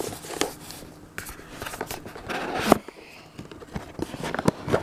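Close handling noise: irregular rustling, scraping and small knocks as a ceramic mug is brought out and turned in the hands right by the microphone, with a longer rustle a little past halfway.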